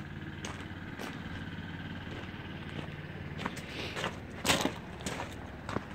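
Case W11B wheel loader's diesel engine idling steadily just after a cold start. Light clicks throughout and one sharp knock about four and a half seconds in.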